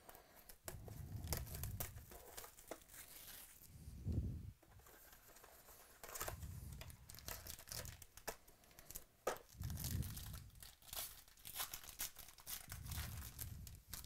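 Plastic and foil packaging of a trading-card box being torn and crinkled as the box is opened and a foil pack unwrapped, with soft bumps from handling the box.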